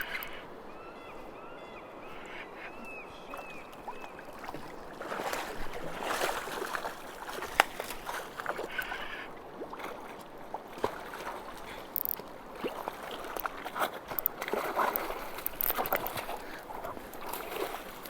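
Water sloshing and splashing in a shallow river as a hooked coho salmon is played and landed. It is quieter for the first few seconds, then comes in irregular surges with scattered clicks, and one sharp click about seven or eight seconds in.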